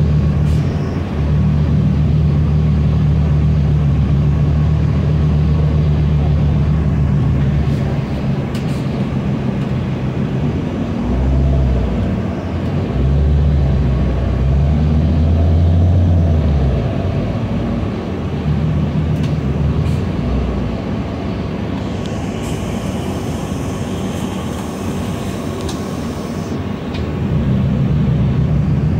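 New Flyer D40LF diesel transit bus heard from inside while under way: a steady low engine drone that rises and falls in pitch in the middle, eases off, and picks up again near the end. A few sharp clicks or rattles, and a hiss lasting a few seconds about two-thirds through.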